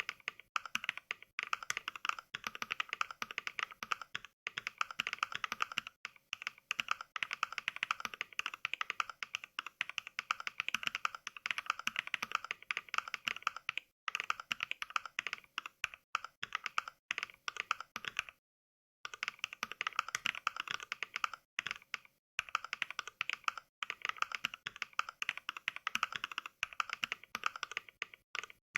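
Simulated mechanical-keyboard typing: Mechvibes 'NK Cream' sampled key sounds (NovelKeys Cream switches) fired for each keystroke of fast touch typing. A rapid stream of clacks, broken by a few brief pauses, the longest about two-thirds of the way through.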